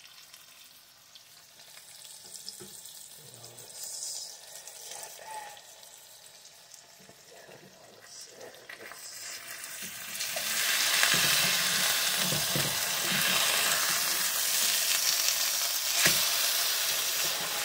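Chicken patties, fried eggs and bacon sizzling together in a nonstick frying pan while a spatula works the food. The sizzle is faint at first and grows much louder about ten seconds in, with a sharp click near the end.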